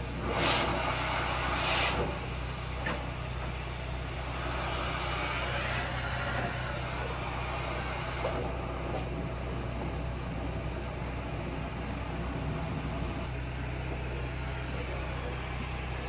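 Dryer-vent cleaning brush on a flexible rod scrubbing inside the vent duct, with loud scraping bursts in the first two seconds, over a steady low mechanical hum.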